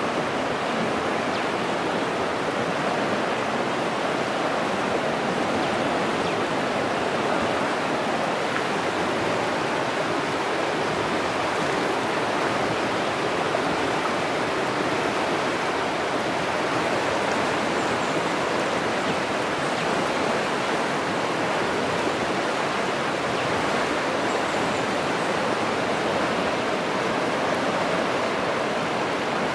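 Fast-flowing river rushing steadily over its bed, a constant, even roar of water.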